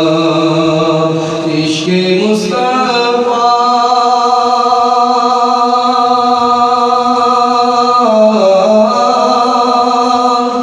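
A man singing a naat unaccompanied through a microphone, drawing out long held notes. His voice steps up in pitch about two and a half seconds in and dips briefly near the end.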